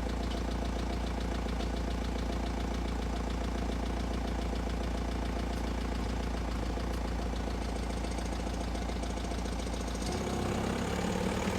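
VW T5.2 2.0 BiTDI four-cylinder diesel idling with a fast, even rattle over the engine note. The owner suspects either the dual-mass flywheel or the DSG gearbox. The engine note changes about ten seconds in.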